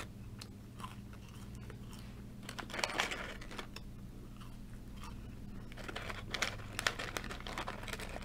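A person chewing and crunching McDonald's French fries close to the microphone, in irregular crunches, with louder clusters about three seconds in and again around six to seven seconds in.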